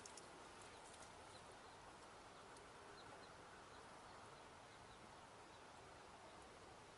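Near silence: faint outdoor background hiss, with a few faint high ticks scattered through it.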